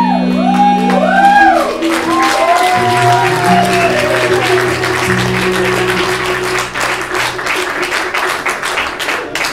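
A live band's final held chord with sliding, arching lead notes dying away over the first several seconds, while audience applause builds about two seconds in and carries on, thinning into scattered claps near the end.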